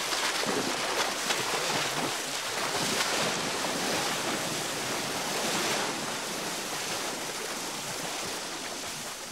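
Shallow river water splashing and sloshing steadily as elephants wade through it.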